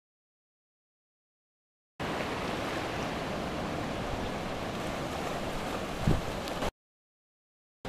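Steady rush of ocean surf washing through shallow water, starting after about two seconds of dead silence and cutting off abruptly near the end. A brief low thump stands out about six seconds in.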